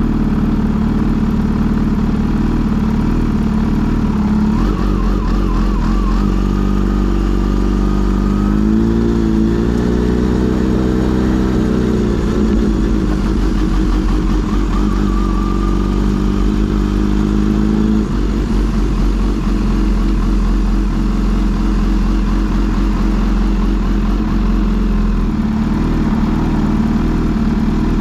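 Kawasaki Z H2 SE motorcycle's supercharged inline-four engine running steadily, its note climbing and dropping about a third of the way in, then holding before shifting down again. A faint higher whine rides over the engine now and then.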